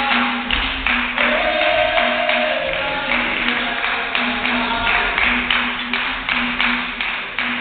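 Capoeira music: a berimbau plays a repeating twanging rhythm while the group claps along in time.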